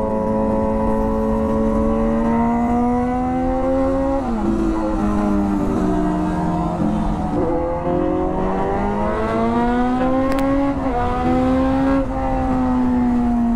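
Kawasaki Z900's inline-four with an SC Project full-system exhaust accelerating hard through the gears. The pitch climbs in each gear and drops sharply at upshifts about four, seven and a half and eleven seconds in. It then falls slowly as the rider eases off near the end.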